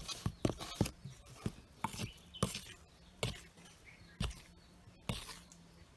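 A steel spoon stirring rice flour, grated coconut and ground spices in a stainless steel plate, clinking and scraping against the metal in irregular strokes, quick at first and then more spaced out.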